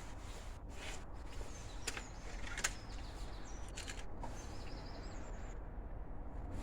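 Outdoor background noise with a steady low rumble, a few short sharp clicks, and birds chirping faintly about two thirds of the way in.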